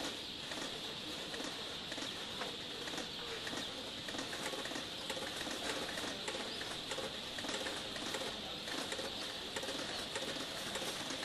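A crowd of day-old chicks peeping continuously in crates, a dense, high chorus of cheeps with many light clicks scattered through it.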